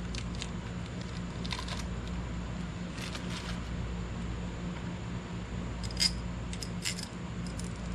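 A few light clicks and taps as small screws are fitted by hand into a new plastic throttle position sensor, the loudest about six seconds in, over a steady low hum.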